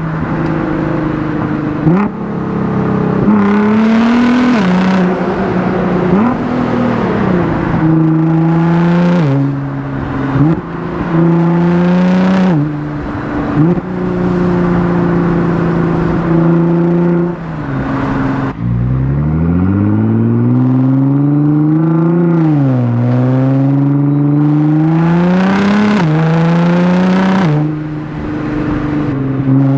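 Nissan GT-R R35's twin-turbo VR38 V6, breathing through Cobb intakes and a non-catted midpipe, accelerating hard through the gears. The engine pitch climbs and snaps back down at each quick dual-clutch shift, many times over. About two-thirds through, the revs drop very low and then rise in one long climb.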